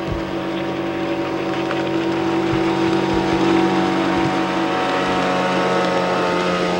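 Outboard-powered motorboat speeding past on the water, its engine a steady drone that grows louder toward the middle.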